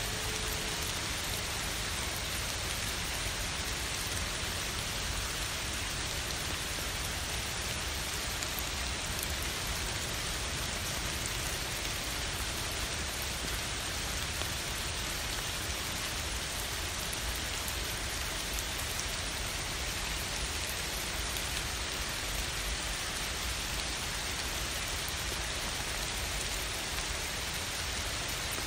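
Summer rain falling steadily, an even hiss of rain with no breaks.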